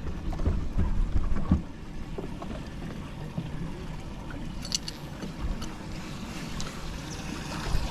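Water lapping against the hull of a small fishing boat, with wind buffeting the microphone and a few light knocks in the first second or two.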